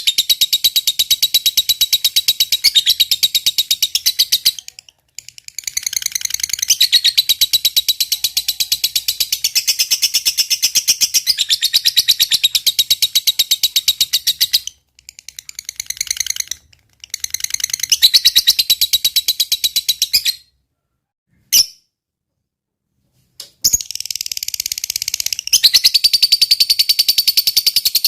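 Fighter lovebird singing its long 'ngekek' chatter: a fast run of high notes repeated many times a second, kept up for several seconds at a stretch. It breaks off briefly a few times and falls silent for about three seconds past the middle before starting again.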